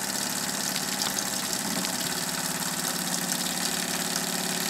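Small homemade model steam engine running fast and steadily on live steam at about 4 pounds of pressure, its steam valve wide open.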